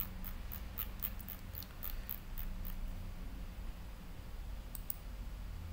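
Light, sharp clicks, about three a second for the first few seconds and then a pair near the end, typical of a computer mouse being clicked, over a steady low hum.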